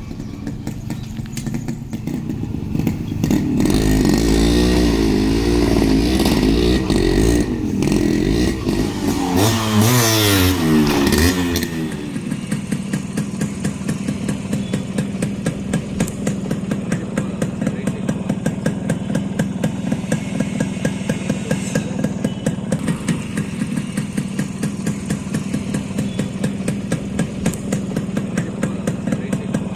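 Yamaha RX 100's two-stroke single-cylinder engine revved up and down repeatedly, then dropping back to a steady idle about a third of the way in.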